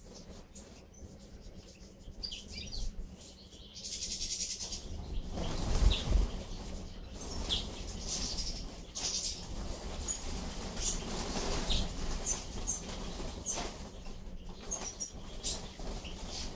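A flock of European goldfinches flushing from their feeding perch, with a burst of flapping wings about five to six seconds in. Short, high calls are scattered throughout.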